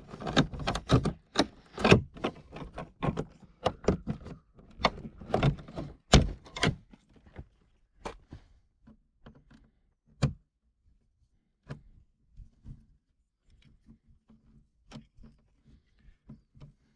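Clicks and knocks of screwdrivers and plastic trim on a Porsche Panamera 4S rear door panel as the handle trim and screws are worked loose. The clicks come thick and fast at first, then thin out to scattered single clicks.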